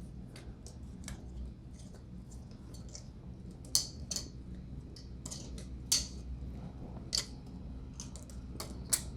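3D-printed Zippy Diode balisong pivoting on washers being flipped: its handles and blade knock together in a series of sharp, irregular clicks.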